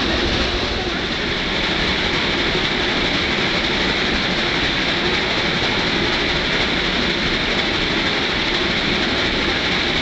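Steady running noise of a train climbing behind Shay geared steam locomotives: the mixed rumble and clatter of the locomotive working and the cars rolling on the track.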